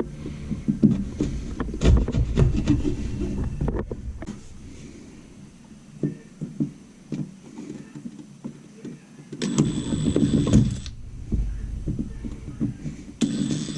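Knocks and handling of wood, then a small electric power tool motor running with a steady high whine for about a second and a half, starting again near the end.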